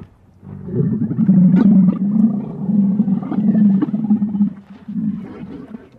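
A long, low, pulsing bellow, presented as the call of Camelops, an extinct camel. It starts about half a second in, swells in repeated surges, dips briefly near the end, then gives one last surge.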